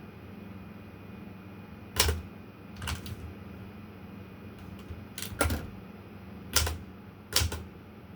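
Olympia Traveller de Luxe manual portable typewriter being typed on slowly: about seven separate key strikes, some in quick pairs, with uneven pauses between them.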